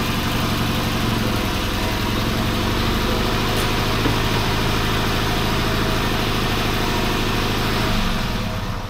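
Fiat 126p BIS two-cylinder engine running steadily, its sound dropping away at the very end.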